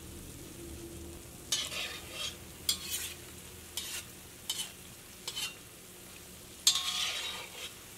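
Oil sizzling steadily as small banana and wheat-flour fritters deep-fry in a wok. A slotted metal spatula scrapes against the pan about six times as the balls are turned, the last scrape longer, near the end.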